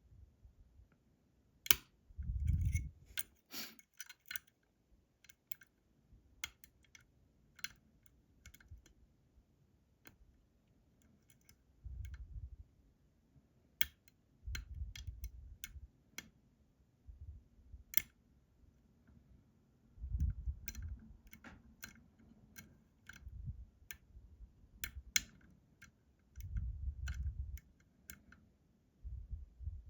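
Lock pick and tension tool working the pins of a Robur 2391 safe deposit lock: irregular small metallic clicks and ticks, with soft low thuds of handling now and then.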